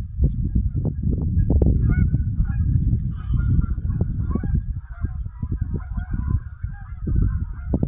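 Geese honking faintly and repeatedly over a loud, gusty rumble of wind buffeting the microphone.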